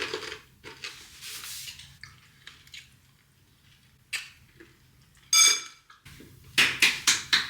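Dishes and cutlery clattering and scraping, with a brief ringing clink about five seconds in, the loudest sound, followed by a quick run of sharp clicks near the end.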